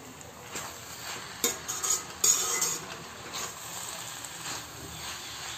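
Perforated steel spatula scraping and stirring potatoes and fenugreek leaves in a kadhai, with a low sizzle of the vegetables frying. The scrapes are loudest about one and a half to two and a half seconds in.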